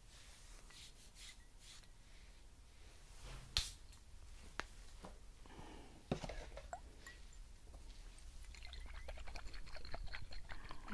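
Faint handling of small glass perfume bottles close to the microphone: soft rustling with a few sharp clicks and knocks, then a run of quick light ticks and clinks near the end as two bottles are lifted up.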